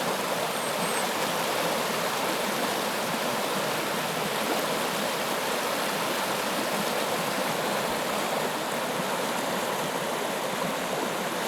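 River water rushing steadily, an even hiss that holds without a break.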